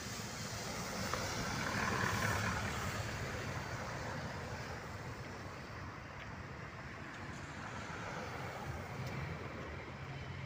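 A diesel coach passing close by, its engine rumble and tyre hiss on the wet road swelling to their loudest about two seconds in and then fading. Steady traffic rumble follows.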